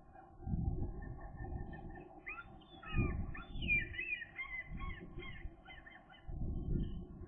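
Wind buffeting the microphone in uneven gusts. Birds call over it in a run of short, gliding notes from about two to five seconds in.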